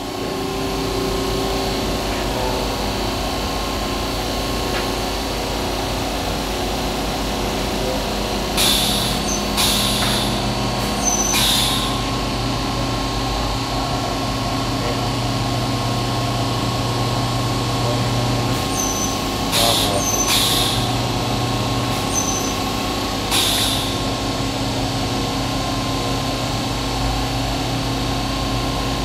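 Hem Saw vertical bandsaw running with a steady machine hum. A deeper hum comes in for about nine seconds, and seven short hisses of air break out in two groups: three and then four.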